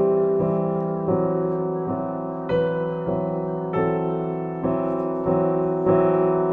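Background piano music, a slow sequence of sustained chords and notes.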